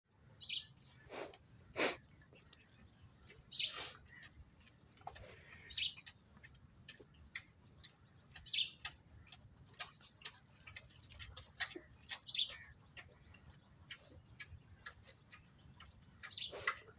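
Birds chirping in short, irregular calls, with sharp clicks scattered among them.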